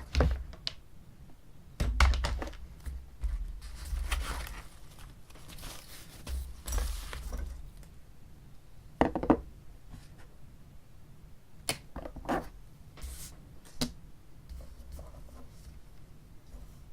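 Handling sounds of a plastic Rotring 300 mechanical pencil being moved about and balanced to find its centre of gravity: scattered light knocks and clicks, with a stretch of rustling near the middle.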